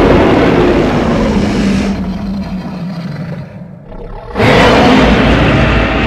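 Custom Godzilla roar sound effect: a long, gritty monster roar with a steady low pitched layer fades out over the first few seconds. A second roar starts abruptly about four and a half seconds in.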